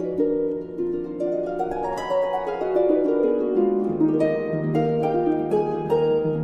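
Background music: gentle instrumental notes that overlap and run up and down in pitch.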